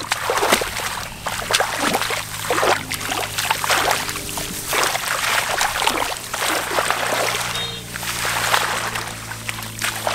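Hands sloshing and splashing through shallow muddy water and rice stubble in irregular bursts, as someone gropes in the mud for fish. Steady background music runs underneath.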